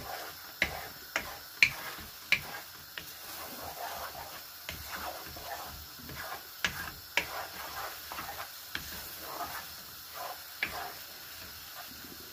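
Wooden spatula stirring scrambled eggs with mushrooms and onion in a non-stick wok, knocking and scraping against the pan in irregular sharp clicks, over faint frying.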